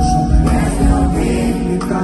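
Live concert music played loud through an arena sound system: a deep bass beat under melodic lines and singing. The bass drops out briefly near the end.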